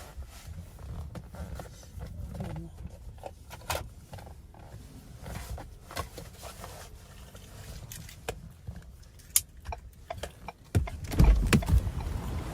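Strong wind buffeting the microphone: a low rumble with scattered clicks and knocks, becoming a much louder gust near the end.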